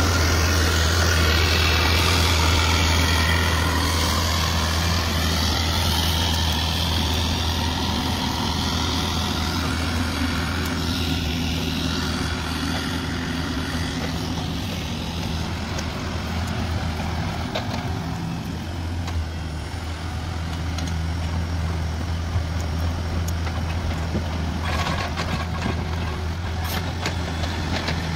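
Diesel engine of compact construction equipment running steadily with a low hum, with a few sharp knocks near the end.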